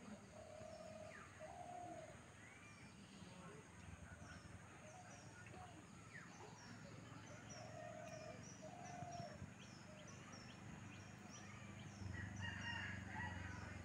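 A rooster crowing faintly in the distance, twice, each crow in two held notes, over a steady run of short, high chirps.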